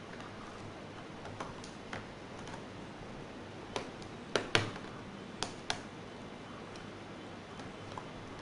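Scattered light clicks and taps of laptop parts being handled during disassembly, with a cluster of sharper clicks about four to six seconds in, over a steady hiss.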